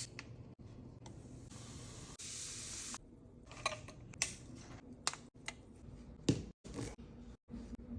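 Kitchen preparation sounds: a hiss lasting about two seconds, then scattered knocks and clicks.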